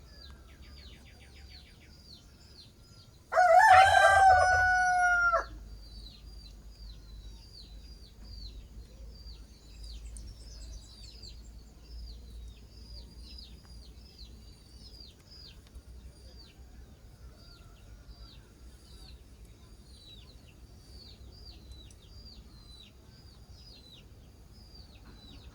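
A rooster crows once, loudly, for about two seconds, starting a little over three seconds in. Chicks peep throughout in short, falling high notes, a few a second.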